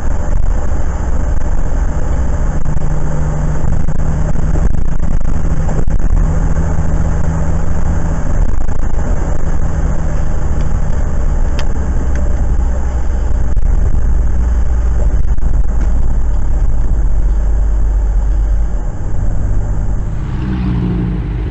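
Steady in-cabin road noise from a car driving on a wet highway, picked up by a dashcam: a continuous low engine and tyre drone under an even hiss, with one small click partway through.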